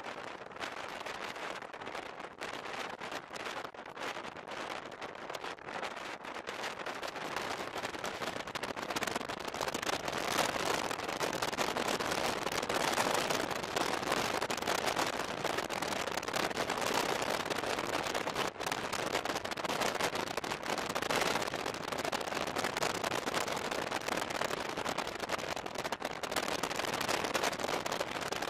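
Moving passenger train heard from an open window: wind rushing and crackling over the microphone along with the steady running noise of wheels on rail. It gets louder about a third of the way in. At the start another train passes close alongside.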